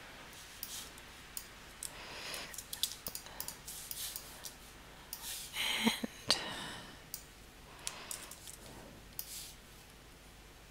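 Scattered short clicks of a computer mouse and keyboard while objects are placed and copied in a drawing program, with a few softer rustles between them, the loudest just before 6 seconds in.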